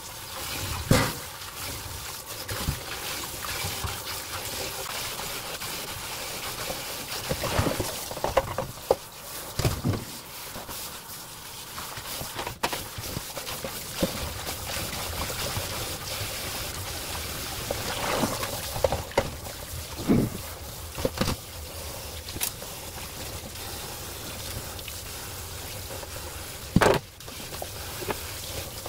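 Tap water pouring steadily into a stainless-steel bowl of leafy greens in a steel sink while hands swish and rinse the leaves. A few sharp knocks and splashes break in, the loudest about a second in and near the end.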